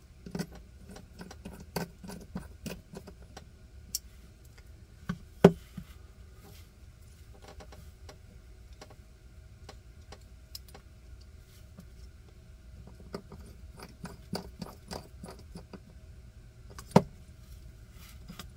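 Small metal clicks and taps of a bit driver and tiny screws being fitted into a Hogue Deka folding knife's handle scales. A few sharper clacks stand out, the loudest about five seconds in and another near the end.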